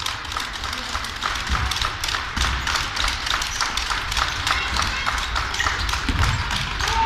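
Basketball play on an indoor court: a rapid patter of players' sneaker footsteps and squeaks on the floor, with occasional ball thuds and a murmur of crowd voices.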